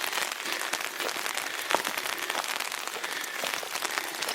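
Heavy rain falling, a steady dense patter of drops.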